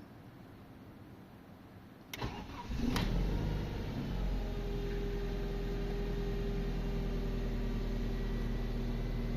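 BMW E46 engine on its first start after a timing chain replacement: a click and a brief crank about two seconds in, the engine catching a moment later, then settling into a steady idle.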